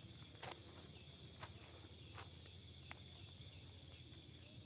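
Faint, steady high trilling of night insects in the forest, with a few soft clicks under a second apart in the first three seconds.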